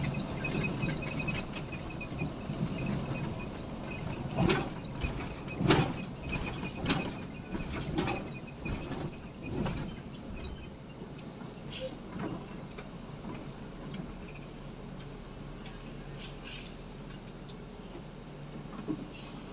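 Cabin noise inside an intercity bus: a low engine and road rumble that becomes quieter through the second half as the bus slows to a stop at a toll booth. Scattered sharp knocks and rattles sound over it.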